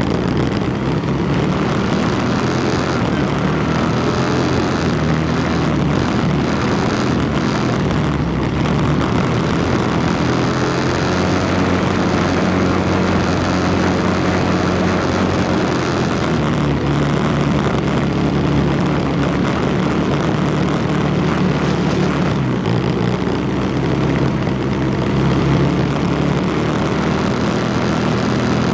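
Four-wheeler (ATV) engine running steadily at cruising speed, its pitch shifting a little a couple of times midway.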